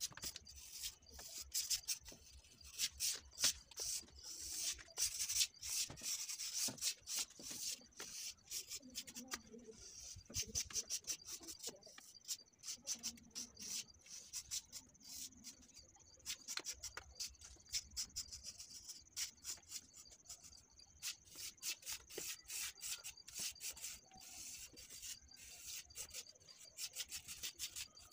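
Small hand tool scraping and carving into a plaster wall: quick rasping strokes, several a second, coming in dense runs with sparser stretches between.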